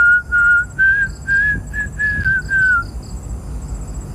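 A person whistling a short run of about seven clear, high notes over the first three seconds, the last ones sliding down in pitch. Crickets keep up a steady pulsing chirp behind it.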